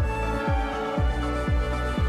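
Background music with steady held tones over a low drum beat, about two beats a second.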